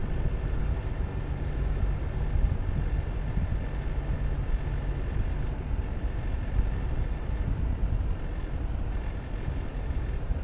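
Vehicle driving steadily along a paved road: a continuous low rumble of engine, tyres and wind buffeting on a vehicle-mounted camera's microphone.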